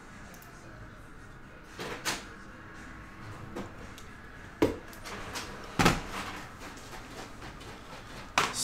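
A few sharp knocks and clunks from things being handled and set down, the loudest two about five and six seconds in, over a low steady hum.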